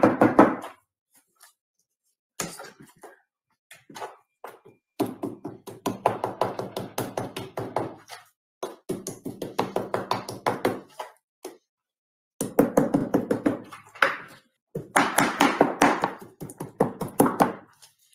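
Knife chopping raw meat on a wooden cutting board. Rapid, hard strokes come in runs of a few seconds each, with short pauses between.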